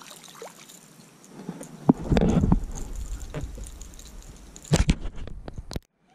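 A hooked bass splashing at the surface beside the boat and being lifted out of the water on the fishing rod. Handling noise goes with it: a loud rumbling bump about two seconds in and a few sharp knocks near five seconds. The sound cuts out abruptly just before the end.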